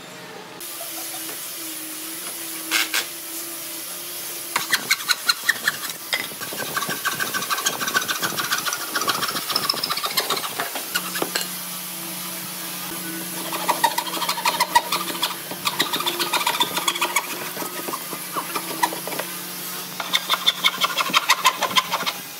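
A Hitachi cordless impact driver runs in stretches, its motor humming steadily and its hammer action rattling in rapid clicks as it drives screws into pine framing. Near the end a wooden frame saw cuts through pine planks in a run of regular strokes.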